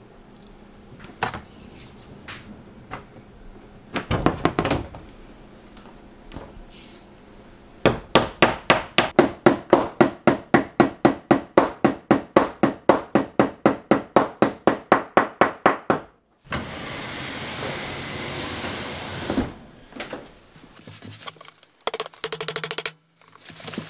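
Claw hammer driving a nail into baseboard molding: a few knocks, then a fast, even run of strikes, about four a second, for some eight seconds. This is followed by a few seconds of steady hiss.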